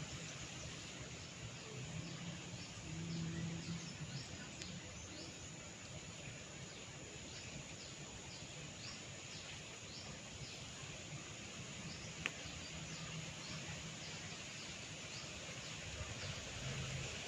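Outdoor background noise with repeated short, high chirps from birds or insects, one or two a second, and a single sharp click about twelve seconds in.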